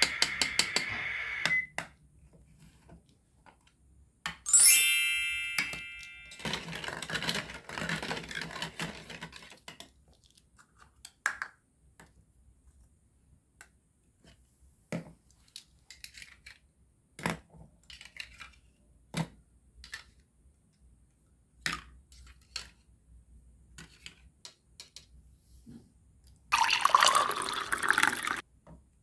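Plastic toy-kitchen pieces handled, clattering and clicking against a small toy pot and bowls, with a brief, loud ringing clink about four seconds in. Near the end, liquid pours from the small pot into a bowl.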